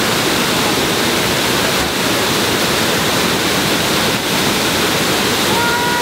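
Waterfall roaring: loud, steady rushing of falling water with no let-up.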